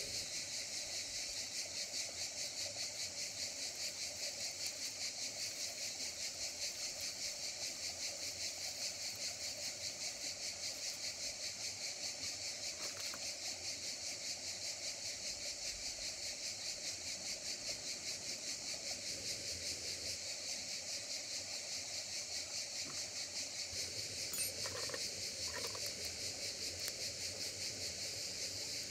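Steady, high-pitched chirring of an insect chorus with a fast, even pulse. A few faint clicks and knocks come about 25 seconds in.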